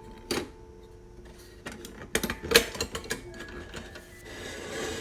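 Hurricane oil lantern being put back together: sharp clicks and rattles of its metal frame as the chimney top is lifted and the glass globe pushed back into place, with the loudest cluster of clicks a little after halfway.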